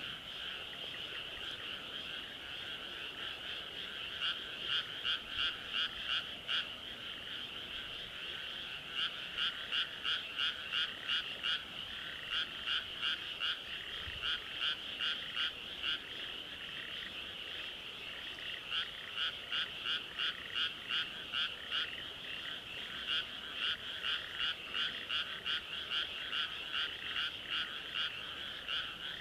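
Dense chorus of frogs calling from flooded rice paddies, with louder runs of evenly spaced croaks, about three a second, coming and going in bouts of a few seconds.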